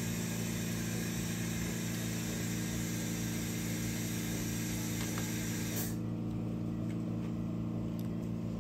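A steady low machine hum with a faint hiss above it; the hiss drops away about six seconds in.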